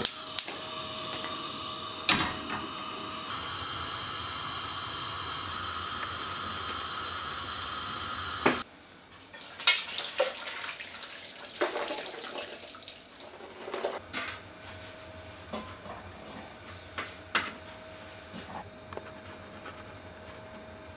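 A gas hob burner clicks a few times as it lights, then burns with a steady hiss that cuts off abruptly. After that, hot water and boiled chestnuts are tipped from a saucepan into a metal colander in a kitchen sink, splashing and clattering, followed by a few light knocks.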